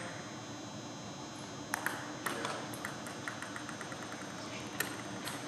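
Table tennis ball clicking off bats and the table in the last strokes of a rally, then a ball bouncing to rest in a quickening patter of small clicks, with one more click near the end.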